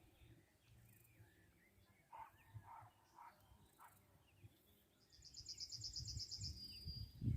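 Faint bird calls: a few short chirps, then a rapid high trill lasting about two seconds near the end. A low rumble builds under it.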